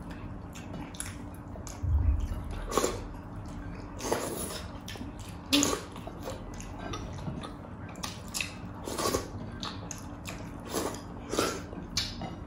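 Close-up wet eating sounds: lip smacks and chewing of fatty pork hock and soup, short sharp smacks coming about one or two a second, with a soft low thump about two seconds in.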